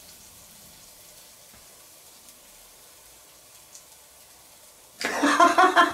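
Sausages sizzling faintly on a charcoal grill grate, a soft even hiss with a few small crackles. A man starts speaking about five seconds in.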